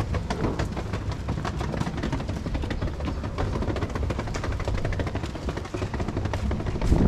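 Wind buffeting the camera microphone as a low, fluttering rumble, with scattered light knocks and footsteps as the camera is carried along a sidewalk.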